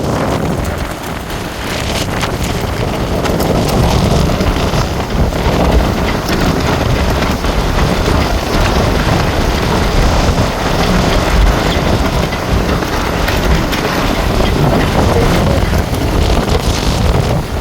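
Hurricane wind blowing hard across the microphone: a loud, steady rush with heavy low rumble.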